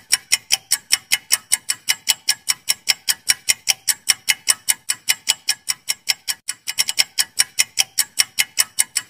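Countdown-timer ticking sound effect: a steady run of sharp clock-like ticks, about five a second.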